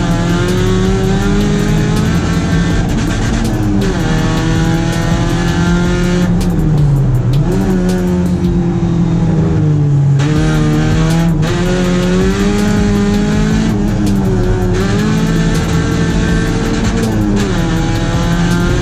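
Rally car's engine driven hard, its pitch climbing under throttle and dropping again every few seconds as it shifts and slows for corners.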